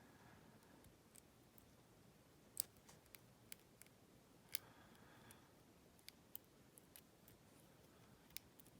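Faint, scattered clicks of a lock pick and tension wrench working the pin stack inside a Hurd padlock, a few sharper ticks standing out over near silence.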